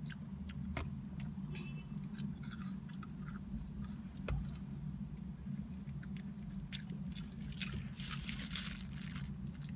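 Close-up chewing and biting of French fries and a cheeseburger, with small wet mouth clicks, over a steady low hum. Near the end, the burger's foil wrapper crinkles for a couple of seconds.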